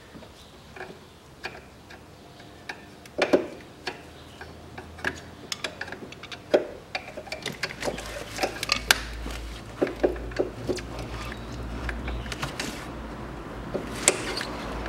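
Irregular sharp clicks and knocks of hand work on the wiring and fittings by the alternator, as the harness is freed from its bracket. A low steady hum comes in about halfway.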